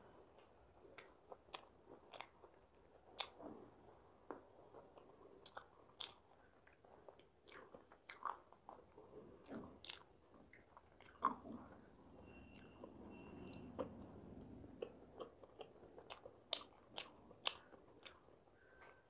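Faint close-up mouth sounds of someone chewing soft idli dipped in a wet curry: irregular wet smacks and clicks from the lips and tongue, with no steady rhythm.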